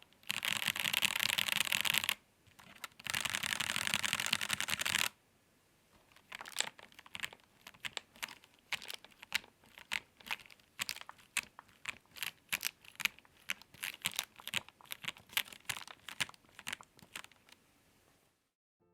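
Typing on the Yunzii Keynovo IF98 Pro mechanical keyboard. There are two stretches of dense, rapid key clatter in the first five seconds, then slower separate keystrokes, several a second, that stop near the end.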